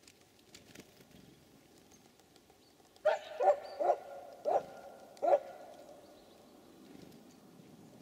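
An animal calling five times in quick succession, starting about three seconds in: five loud, harsh calls about half a second apart that ring on faintly after them.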